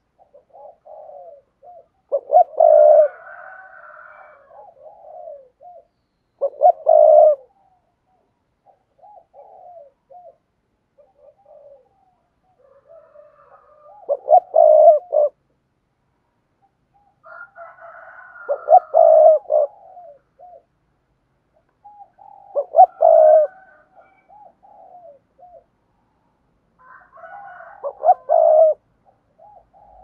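Spotted dove cooing: six loud coo phrases a few seconds apart, with softer low coos in between.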